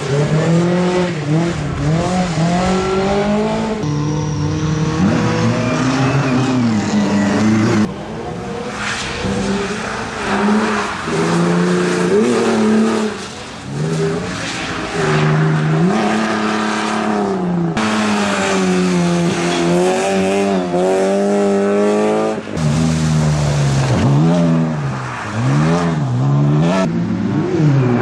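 Competition car engine revving hard, its pitch climbing and dropping again and again through gear changes and lifts. The sound changes abruptly a few times, as between separate passages.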